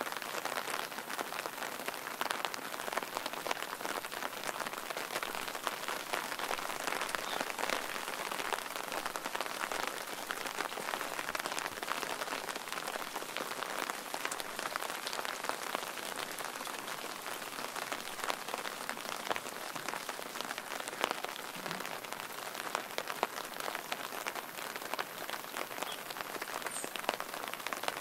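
Steady rain falling, a dense patter of many small drops that goes on evenly throughout.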